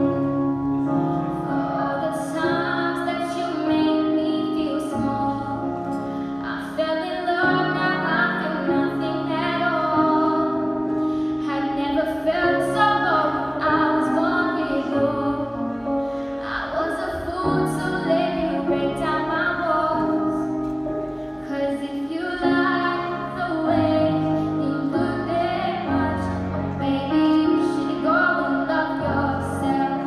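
A young girl singing a slow song live into a microphone over a backing track of sustained low notes, carried through the hall's PA system.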